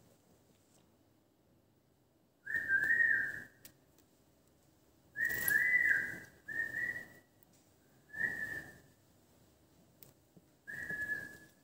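Five short whistles at about the same pitch, each lasting half a second to a second, some dipping slightly in pitch.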